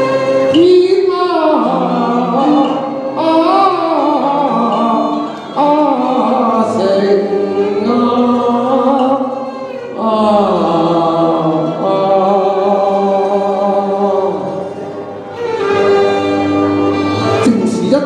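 A man singing a Chinese song into a microphone over recorded music accompaniment, in phrases with short breaks between them.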